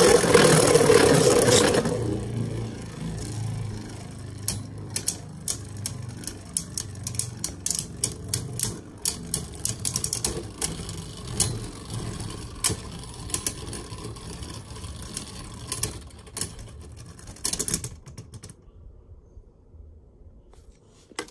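Two Beyblade spinning tops, one of them Vanish Fafnir, whirring in a plastic stadium, loud at first and then fading as they lose speed, with many sharp clicks as they knock together. Both run down and stop with a last few clicks about three quarters of the way through, after which it is nearly quiet.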